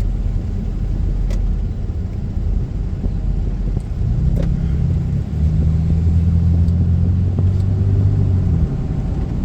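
Car driving, heard from inside the cabin: a steady low engine and road rumble. About four seconds in a steady low drone joins it and fades out near the end.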